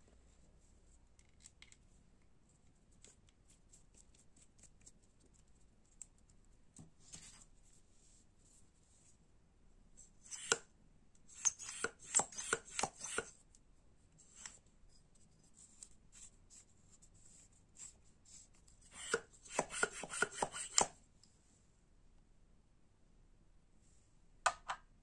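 Small plastic air-valve adapters being handled and fitted together by hand: scattered faint clicks, then two bursts of rapid plastic clicking and rattling, one about ten seconds in and one about twenty seconds in, and a quick double click near the end.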